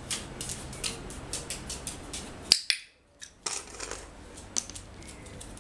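A dog's claws clicking on a ceramic tile floor as it walks, a run of light irregular clicks. One sharper click comes about two and a half seconds in, and then the sound briefly cuts out.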